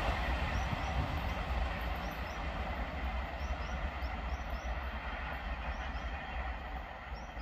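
Passenger express train running past on the track: a steady rush and rumble of coaches and wheels on the rails, slowly fading.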